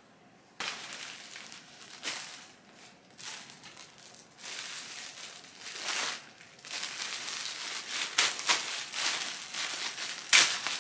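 Plastic packaging crinkling and rustling in irregular bursts as clothing is unwrapped, with a sharp crackle near the end.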